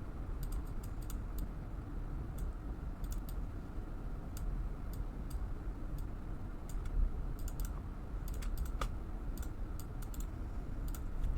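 Irregular, scattered clicks of a computer keyboard and mouse being worked, over a faint low hum.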